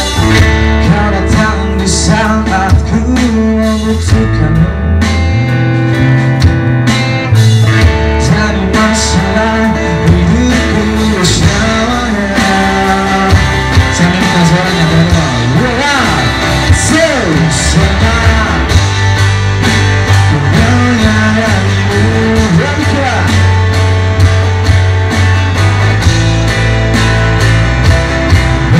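Live band playing a pop-rock song: a man singing over electric guitar, drums and band accompaniment.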